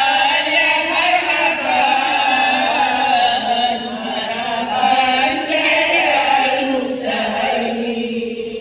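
A women's marhaban group chanting in unison into microphones, with no instruments: Malay devotional singing in praise of the Prophet, sung in long, drawn-out phrases. The phrase dies away near the end.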